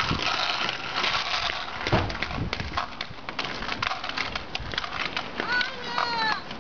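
Inline skate wheels rolling over rough asphalt: a steady gritty noise with scattered clicks and knocks.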